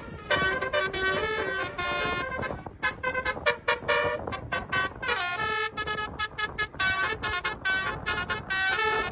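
Indonesian bus 'telolet' multi-tone horn of the Basuri type, playing a tune of short notes that change pitch several times a second, with brief breaks between phrases.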